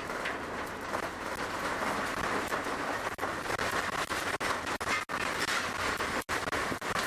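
Earthquake shaking picked up by a surveillance camera's microphone: a steady rattling rumble, broken by a few brief dropouts near the end.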